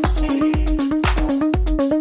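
Electronic dance music with a steady kick drum about twice a second under a repeating synth riff.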